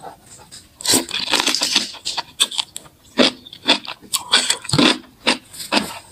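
Close-range eating sounds of kimchi being bitten off a fork and chewed: irregular short crunches and wet mouth noises from the fermented cabbage, whose tough stems are hard to bite.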